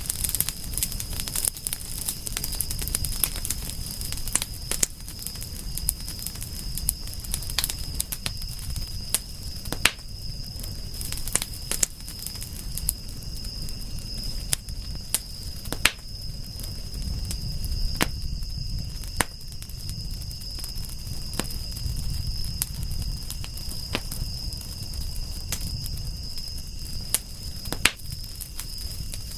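Wood fire crackling and popping, with frequent sharp snaps over a low rumble of burning. A steady high-pitched tone sits behind it.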